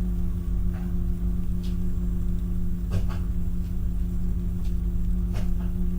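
A man humming one long, steady low note with closed lips, a meditation hum held on a single pitch. A steady low rumble runs underneath.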